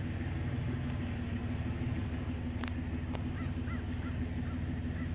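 A few short, repeated bird calls in the second half, over a steady low rumble and hum, with two brief clicks near the middle.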